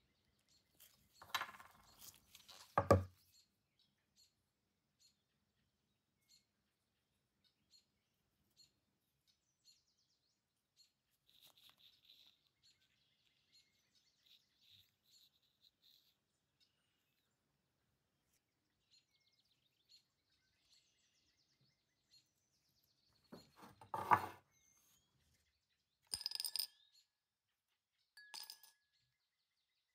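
Small metal pieces knocked and set down on a hard work surface: a few knocks near the start, soft scratching in the middle, a louder clatter later, then two short clinks that ring briefly.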